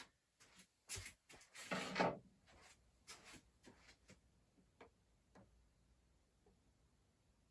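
Light handling noises: a few small clicks and knocks, a brief rub about two seconds in, then scattered faint ticks.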